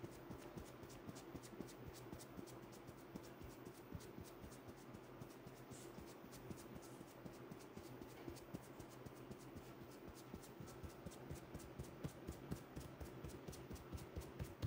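Fingers scratching and rubbing through short hair on a scalp: a quick run of soft, scratchy strokes, several a second, over a faint steady hum.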